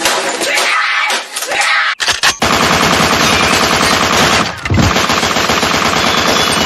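About two seconds of music, then an abrupt cut to a very loud, harsh rapid-fire rattle of gunfire that runs on without a break, dipping briefly with a low thud partway through.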